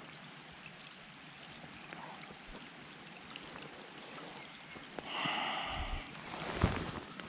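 Steady light rain pattering. About five seconds in come two louder spells of rustling, each with low bumps.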